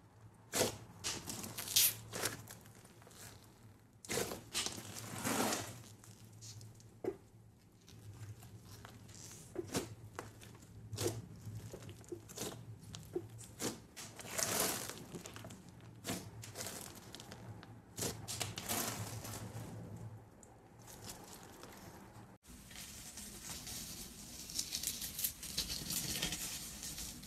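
Hands squeezing and kneading a pink slime studded with small foam beads: irregular crackling pops and squishes. After a sudden change about three quarters of the way in, a finger presses into a blue glitter slime, giving a denser, steadier crackle.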